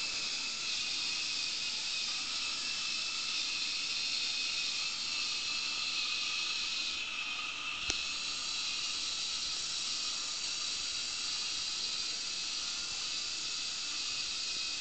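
Small Lego Technic electric motor driving a worm gear, whirring with a steady high hiss as the walker's crank and legs turn. A single sharp click about eight seconds in.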